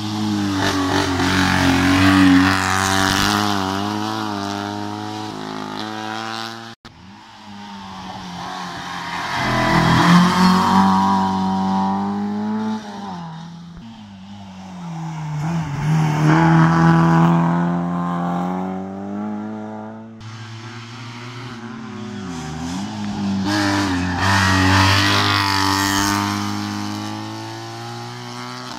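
Racing cars taking a tight bend one after another, each engine revving high, falling away as it brakes and rising again as it accelerates out; four loud passes, with abrupt breaks between some of them.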